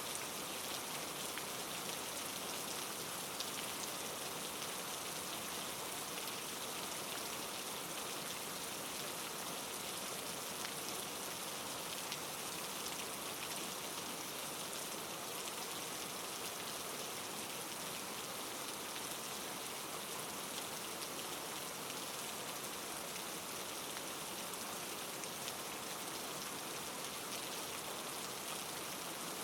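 Steady rain falling, played as a continuous white-noise ambience, with faint scattered ticks of drops.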